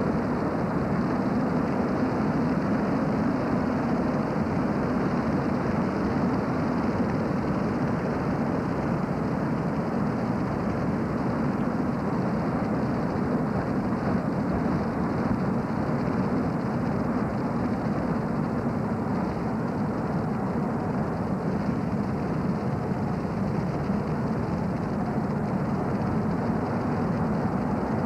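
Steady drone of a car driving along a paved road: engine and tyre noise picked up from the moving car, even throughout.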